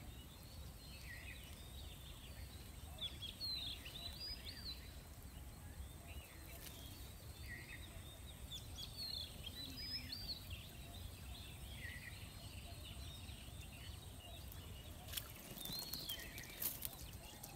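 Bird calling in short bursts of chirps every few seconds over a faint low outdoor rumble, with a few sharp clicks near the end.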